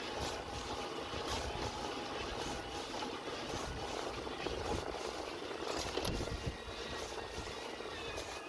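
Cube Longtail Hybrid 725 cargo e-bike in motion: its Bosch Cargo Line mid-drive motor runs with a faint steady whine over tyre and wind rumble. A light scraping repeats about every half second, the noise the owner hears as a scratching motor and a front disc brake rubbing.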